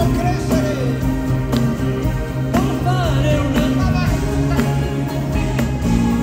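Live band playing a pop ballad, with a lead melody that glides and bends in pitch over sustained bass notes and scattered drum hits.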